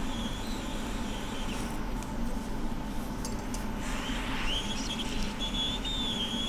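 Quick 861DW hot air rework station blowing a steady hiss of hot air at high airflow over a phone logic board. A faint, wavering high whine joins about four seconds in.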